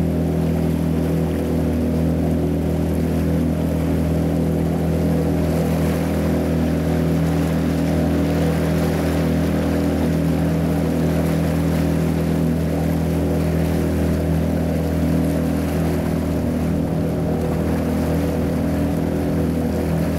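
A small boat's motor running at a steady speed, an unchanging hum with no rise or fall in pitch.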